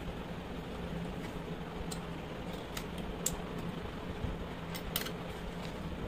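A handful of light, sharp clicks of a small screwdriver and wire pin against the terminal and plastic housing of an opened clothes iron as the cord's wire is worked into its terminal, over a steady low hum.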